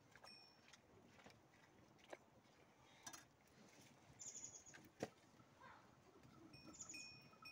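Near silence with faint outdoor ambience: a few faint high bird chirps and scattered soft clicks, with one sharper knock about five seconds in.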